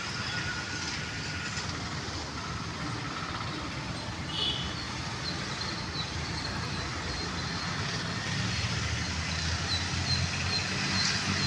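Steady road traffic noise: a low rumble of passing vehicles that swells somewhat near the end, with a brief high tone about four seconds in and faint high chirps over it.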